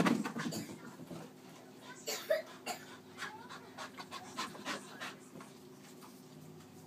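Blue heeler panting, with a loud knock right at the start and scattered short knocks and scuffs after it.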